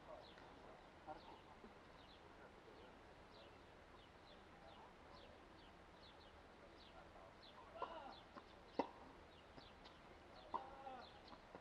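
Small birds chirping throughout, faint: a run of quick, short high notes that each fall in pitch. In the second half a tennis ball is struck by rackets, a few sharp pops a second or two apart.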